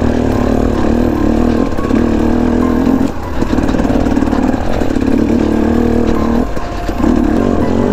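KTM 250 EXC TPI two-stroke dirt bike engine being ridden on and off the throttle, pulling in stretches of a second or two, each broken by a brief drop in revs; the drops come about four times.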